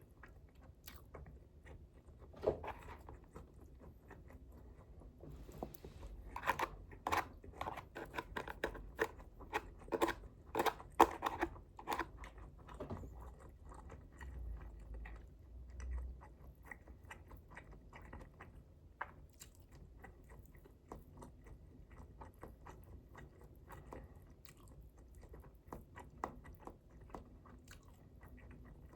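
A person biting and chewing crunchy food, with a run of loud crunching bites from about six to thirteen seconds in, then quieter chewing.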